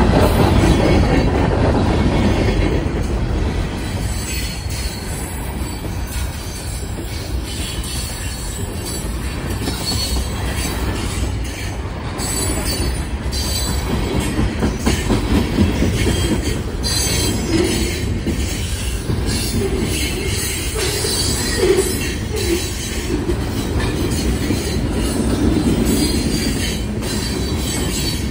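Freight cars of a passing train rolling by at close range: covered hoppers, a gondola and centerbeam flatcars loaded with lumber. Their steel wheels on the rails make a steady rumble, with a run of sharp clicks as the wheels pass over rail joints from about the middle on.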